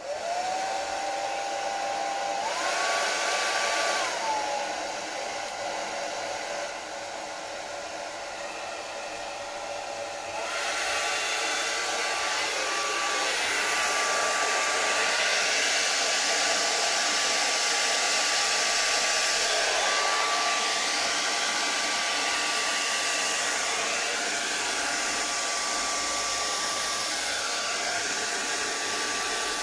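Hand-held hair dryer switched on, blowing steadily with a motor whine over a rushing airflow, used to blow poured paint across a canvas. It is quieter for several seconds early on, then comes back up about ten seconds in and runs steadily with a constant whine.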